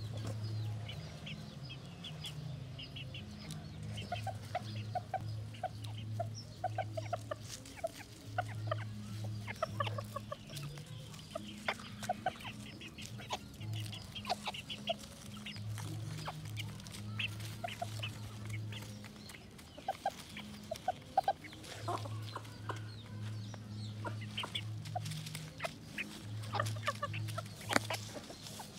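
Small chickens, a rooster and hens, clucking in short repeated notes as they forage close by. A low hum comes and goes underneath, and there are a few sharp clicks near the end.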